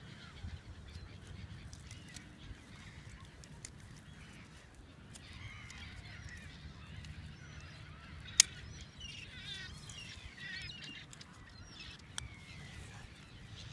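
Waterbirds calling faintly in the distance over a low rumble of wind, with one sharp click about eight seconds in and a fainter click near the end.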